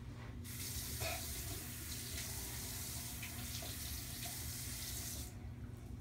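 Bathroom sink tap running, turned on about half a second in and shut off about five seconds in, with a few small knocks.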